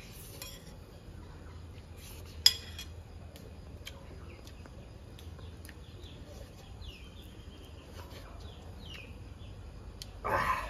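Birds calling with short, falling high chirps through the middle, and one sharp clink of a spoon against a ceramic plate about two and a half seconds in. A brief, louder burst of noise comes just before the end.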